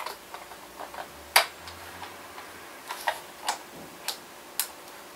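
A few small, sharp clicks and taps at irregular intervals, the loudest about a second and a half in, from a model railway coach being handled and its wheelsets being pushed into place.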